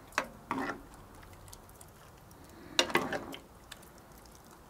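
A ladle knocking and scraping against a cast-iron Dutch oven as thick stew is scooped out. The sound comes in two short bouts of clinks, one just after the start and a longer one about three seconds in.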